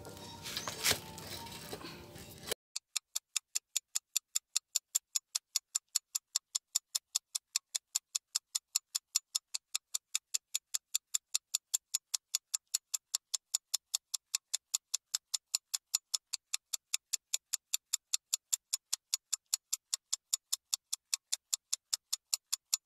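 Clock-ticking sound effect, a steady run of short high ticks at about four a second over dead silence, starting a couple of seconds in. Before it come a few faint clicks and rattles of hands working the motorcycle's rear wheel and chain.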